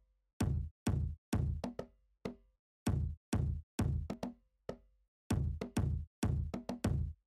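Intro music: a stop-start beat of short drum hits, each ringing briefly, in clusters broken by moments of silence.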